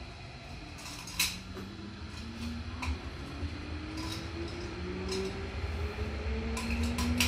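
Electric train accelerating away from a station, heard from inside the car: a traction motor whine rising steadily in pitch over a growing rumble of wheels on the track. A few sharp clicks and knocks come through, the loudest about a second in and near the end.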